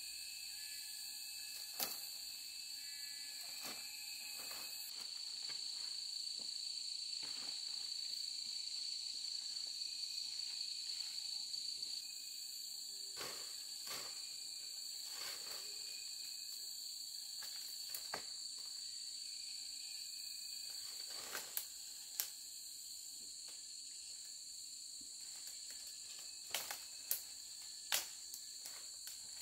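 Insects chirring steadily in a high, continuous drone, with scattered sharp clicks and knocks, several close together near the end.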